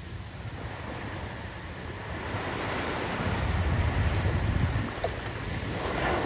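Small ocean waves breaking and washing up a sand beach, the surf swelling to its loudest about halfway through, easing for a moment and building again near the end.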